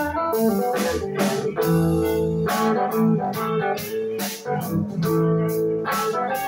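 Live blues-rock band playing: amplified electric guitar riffing over a drum kit, with regular drum and cymbal strikes.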